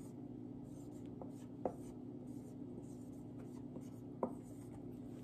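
Faint scratching of a word being written out by hand, with a few light ticks of the pen or pencil, over a steady low room hum.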